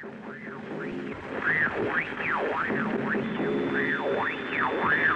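Shortwave radio hiss with whistles that rise and fall over and over, the warbling interference heard on wartime BBC broadcasts. A thin steady high tone joins about three seconds in.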